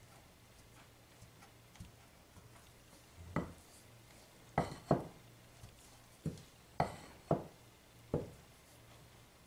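A wooden spoon stirring stiff marshmallow fondant dough in a glass bowl, knocking against the glass. There are about seven sharp knocks, starting about three seconds in.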